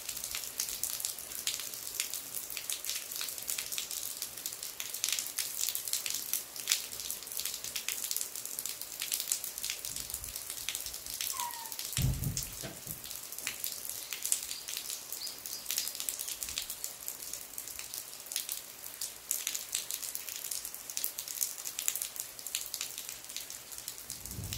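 Rainwater falling from the eaves of a traditional Korean tiled-roof temple hall in steady rain: dense, irregular drips and splashes over the hiss of the rain. A dull thump comes about halfway through.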